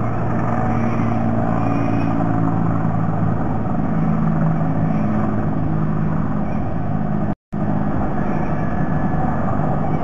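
Steady rumble of distant road traffic picked up by the nest camera's microphone, with low engine hum drifting in pitch; the sound cuts out completely for a moment about seven seconds in.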